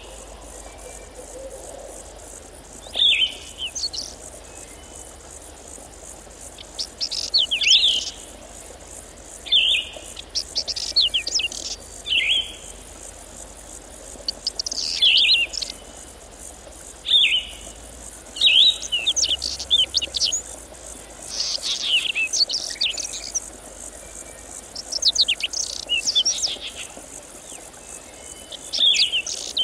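A songbird singing short, quick phrases of chirps, a new phrase every two to three seconds, with a faint steady high chirring of insects behind.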